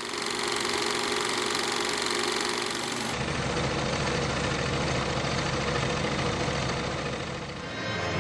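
Film projector running: a steady mechanical clatter and whir, which changes character about three seconds in. Near the end a low rumble comes in.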